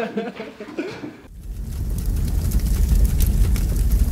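A person's voice briefly at the start, then after a sudden cut about a second in, a fire sound effect: a low rumble that swells and holds, with crackling over it.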